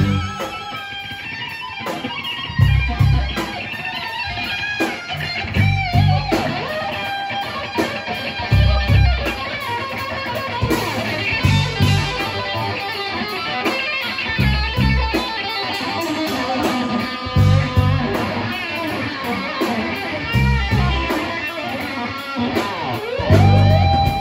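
Live band playing: electric guitars over bass guitar and drums, with wavering, bending guitar lines and no singing.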